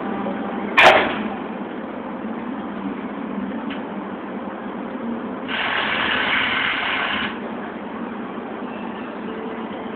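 Steel temporary fence panels being handled on a flatbed truck: one sharp metallic clank about a second in, then a rough scraping noise lasting about two seconds past the middle. A steady hum, the truck's engine idling, runs underneath.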